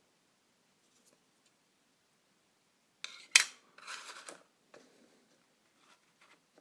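A sharp click about three and a half seconds in, then a brief scraping rustle and a few faint clicks: the parts and packaging of a budget mobile phone being handled during unboxing.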